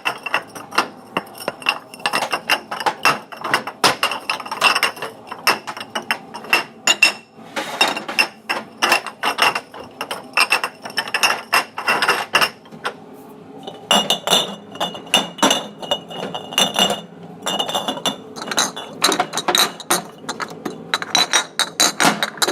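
Glassware clinking: a rapid, irregular run of sharp glass-on-glass clinks, each with a short ringing tone. There is a brief pause about thirteen seconds in, after which the ringing is slightly higher in pitch.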